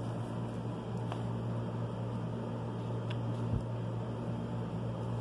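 A steady low machine hum, like a fan or motor running, with a couple of faint ticks.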